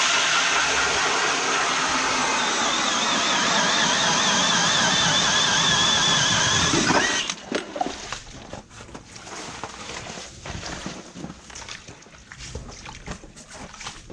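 Power ice auger drilling through lake ice: a steady motor whine over the grinding of the bit, cutting off suddenly about seven seconds in. Then scattered knocks and sloshing of slush and water in the fresh hole.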